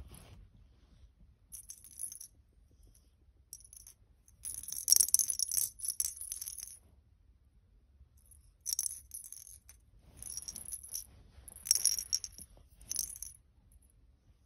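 Jingle bell inside a perforated plastic ball cat toy, jingling and rattling in repeated bursts as a cat bats it with its paws. The longest and loudest burst comes about five seconds in.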